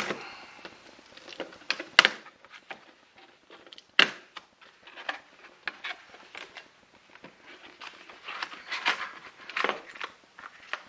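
Cardboard box being opened by hand: sharp snaps and clicks, the loudest about two and four seconds in, and rustling of packaging near the end.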